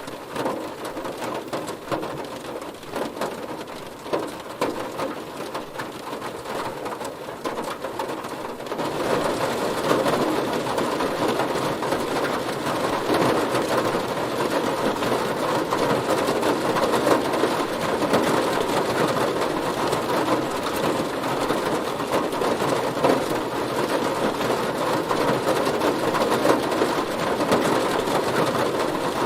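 Heavy rain hitting a car, a dense, steady patter of drops that grows louder about nine seconds in.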